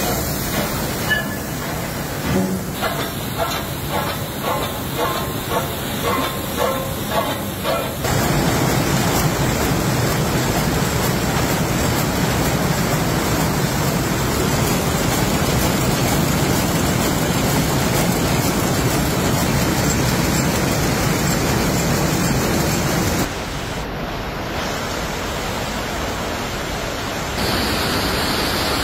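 Jute sack-mill machinery running. There is a rhythmic clatter at just under two beats a second for the first several seconds, then the dense, steady din of jute weaving looms, which drops and rises again abruptly near the end.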